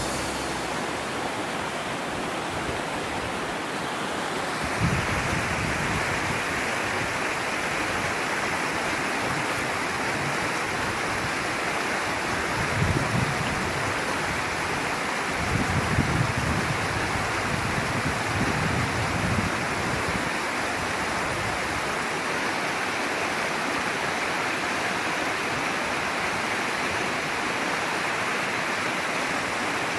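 Steady rush of flowing river water, with a few low bumps about five seconds in and again around the middle.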